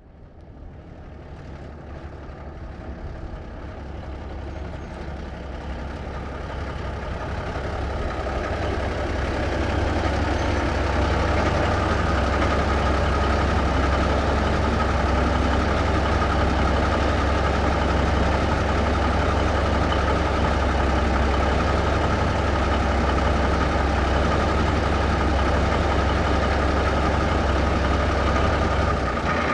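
1954 big-rig truck engine heard from outside, pulling in and growing louder over the first ten seconds or so, then idling steadily with a deep, even rumble.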